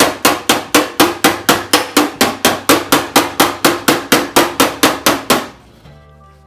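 Body hammer tapping rapidly on the sheet-steel front fender of a 1966 Plymouth Belvedere with a dolly held behind the panel, about four even taps a second, stopping near the end. This is off-dolly work, tapping beside the dolly to raise a low spot by a welded seam.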